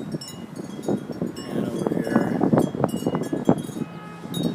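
Wind chimes tinkling: scattered short, bright metallic rings at several different pitches, struck irregularly.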